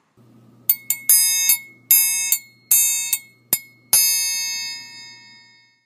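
Triangle struck about ten times in a quick, even rhythm, with a bright, high metallic ring; the last strike is left to ring on and fade away over a couple of seconds.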